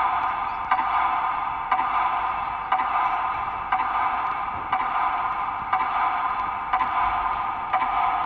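Metronome ticking once a second over a steady tone, played through a loudspeaker to mark the minute of silence.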